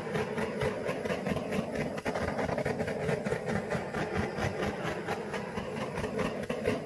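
Handheld blowtorch flame running steadily with a rapid flutter, played over a wet acrylic pour to bring up cells.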